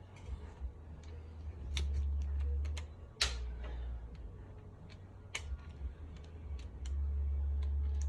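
Scattered light metallic clicks and taps of hand tools and engine parts being handled, irregularly spaced, with a louder clack about three seconds in and another about five seconds in, over a low rumble.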